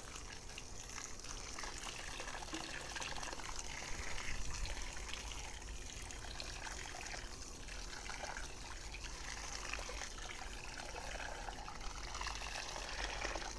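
Water from a garden hose spray nozzle pouring onto the potting soil of a tree planted in a plastic bucket, a steady trickling splash.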